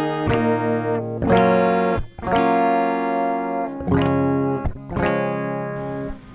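Instrumental music led by guitar chords, a new chord struck about once a second and ringing between strikes.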